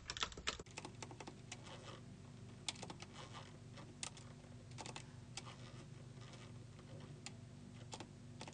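Faint, irregular clicking of buttons on an Akai MPC 2500 sampler as note events are stepped through and edited in its event list, over a steady low hum.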